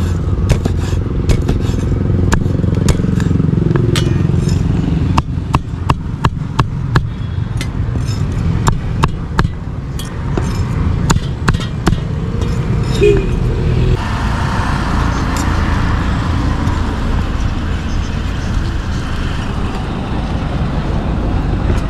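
Heavy cleaver chopping grilled pork on a thick round wooden chopping board: a string of sharp, irregular knocks, about one or two a second, that stops about twelve seconds in. A steady low rumble runs underneath throughout.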